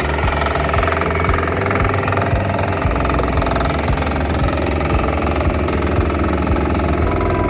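A small engine running steadily at an even speed, with a fast regular firing rhythm.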